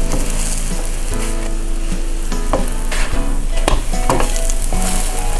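Food frying in a hot pan, sizzling steadily, with a few sharp clicks of a utensil against the pan, the last of them near the end.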